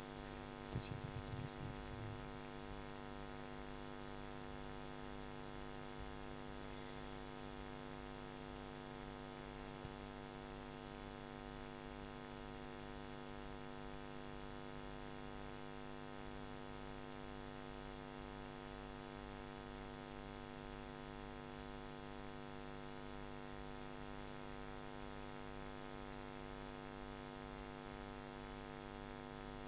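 Steady electrical mains hum, a drone of several steady tones stacked together that never changes, with a few faint knocks in the first two seconds.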